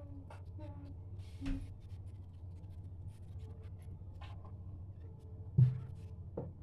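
A pot of afritada stew simmering under a glass lid on a gas burner: a steady low hum with scattered small ticks and pops, and one sharp thump about five and a half seconds in.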